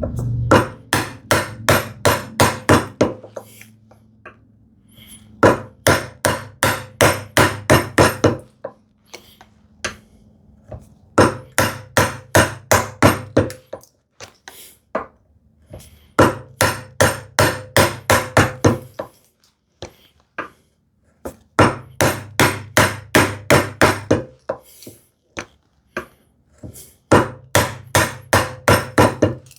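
A bevel-edge chisel struck with quick repeated blows, chopping a mortise into wood. The blows come in six runs, about four a second, with short pauses between.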